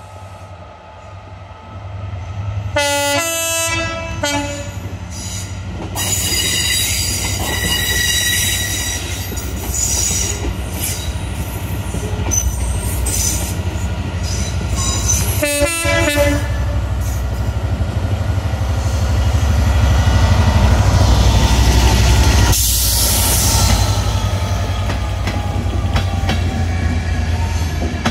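A train passing through a station, its horn sounding briefly twice, about three seconds in and again about fifteen seconds in, over the steady low rumble of the train, which swells about twenty seconds in.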